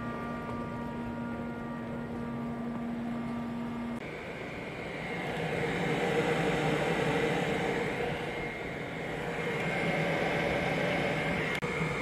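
Rooftop HVAC units running. A steady mechanical hum with a few held tones changes about four seconds in to a louder, even rushing of fan and airflow noise.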